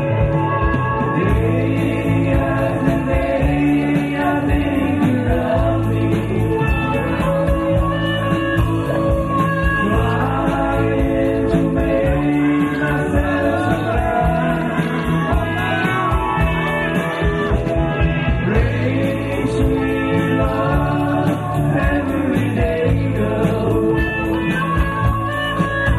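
Live band playing a song: a man sings lead into a microphone over electric bass, electric guitar and drums.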